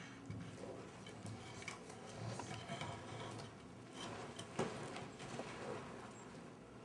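Chinese box turtles biting and crunching monkey chow biscuits: quiet, irregular clicks and crunches, with one sharper snap about four and a half seconds in.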